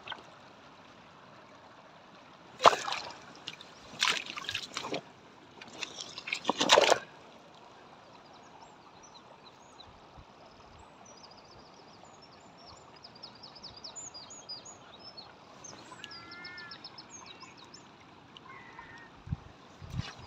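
Water sloshing and splashing in a shallow rock pool as stones are lifted by hand, in three bursts during the first seven seconds. After that, faint high bird chirps.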